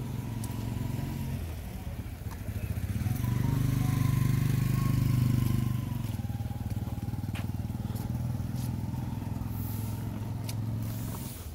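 A motorcycle engine running close by, getting louder for a few seconds about three seconds in and then easing back to a steady hum.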